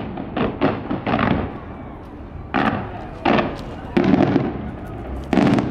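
Aerial fireworks bursting, about seven sharp bangs at uneven intervals, each trailing off. The last, near the end, is the loudest.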